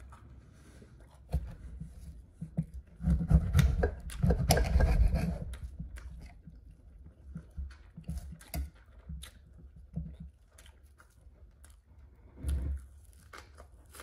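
A person eating: a knife and fork clicking and scraping on a plate while grilled food is cut, with chewing. A louder, noisy stretch comes about three seconds in and lasts about two seconds, then scattered short clicks.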